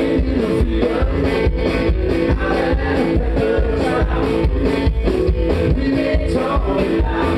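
Live country rock band playing: upright double bass, electric guitar and drum kit keeping a steady beat, with a woman singing.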